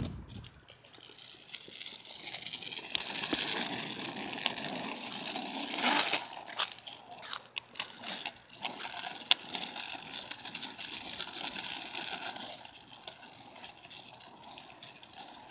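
Skateboard wheels rolling over rough asphalt: a steady rushing hiss, loudest about three seconds in, with scattered clicks and knocks from the board.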